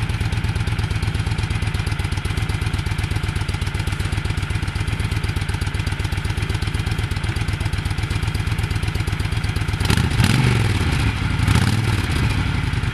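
2006 Honda VTX 1300 V-twin idling on its stock exhaust shortly after a cold start, an even, steady beat. About ten seconds in it grows a little louder and less even.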